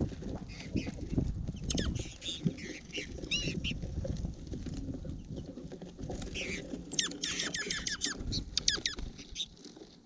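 Small birds feeding on a seed-strewn feeder tray right at the microphone: steady pecking, scratching and tapping on seed and snow, with high chirping calls a few times, clustered about three and a half seconds in and in a quick run about seven to nine seconds in.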